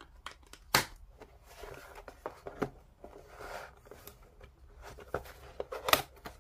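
Cardboard model-kit box being handled and opened: rustling and scraping of card, with scattered sharp taps and clicks, the loudest about a second in and again near the end.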